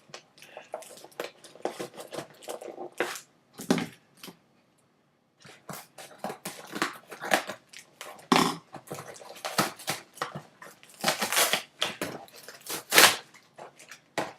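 Packaging being pulled open by hand to get a new scooter clamp out: a quick series of crackles, rustles and small knocks. There is a short pause about four seconds in, and the busiest, loudest handling comes near the end.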